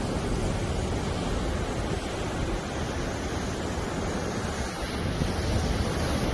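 Rough sea surf breaking and washing steadily, heavy with storm swell under a high-seas warning, with wind buffeting the microphone.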